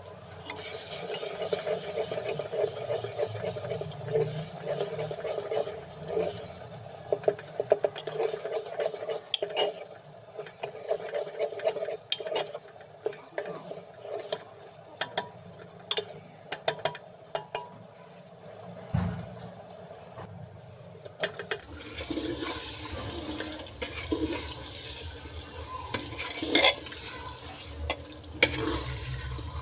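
Spiced onion-tomato masala sizzling in hot oil in an aluminium pressure cooker, stirred with a ladle that clicks and scrapes against the pot over and over. About two-thirds of the way through the sound changes and gets fuller as chicken pieces go into the masala.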